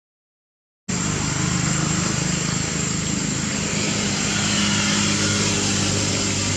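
Engine running steadily with a low hum, cutting in abruptly about a second in, over a steady high-pitched whine.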